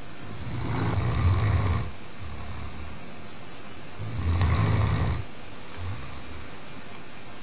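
Dog snoring in deep sleep: two long snores about three seconds apart, each lasting over a second, with softer breathing between them.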